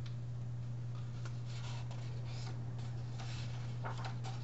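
Soft paper rustles and handling noises from a picture book being opened and its pages handled, over a steady low electrical hum.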